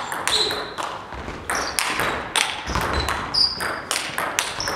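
Table tennis rally: the celluloid ball clicks off the bats and bounces on the table in a quick, irregular run of sharp ticks, with a few short high squeaks among them.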